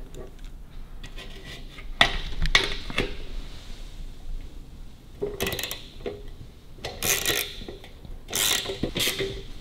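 A screwdriver scraping and clinking against the metal underside of a sidecar mudguard in about four short bursts, tightening the fixing of a mudguard lamp.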